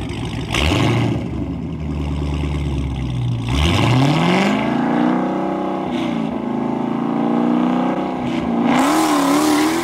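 Drag-racing cars, a Dodge Hellcat and a bolt-on Nissan GT-R, run at low revs, then about three and a half seconds in an engine revs up sharply and keeps pulling hard under acceleration.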